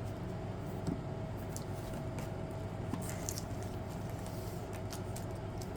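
Steady low background hum with a faint steady tone, and a few soft scattered clicks and rustles of trading cards being handled.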